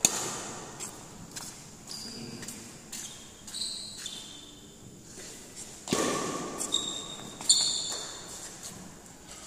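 Badminton rally in an echoing hall: sharp cracks of rackets striking the shuttlecock, the loudest about six seconds in and again a second and a half later, with short high squeaks of court shoes and footsteps on the floor between them.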